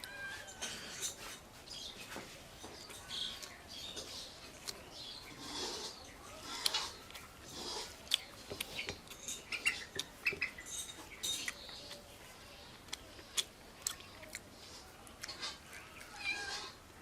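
Close-up eating sounds from a person eating a meal by hand: chewing and lip smacks, with many short clicks.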